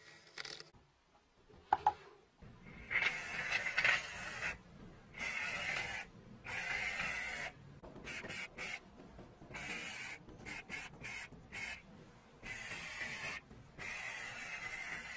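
Powder coating spray gun blowing red powder paint: hissing bursts of air start and stop as the trigger is pulled. First come a few long bursts, then a string of short ones, then longer bursts again near the end. A couple of light knocks come before the spraying starts.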